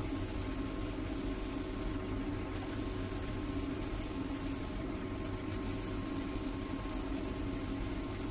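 Steady machine hum with a low drone and a faint high tone, unchanging throughout.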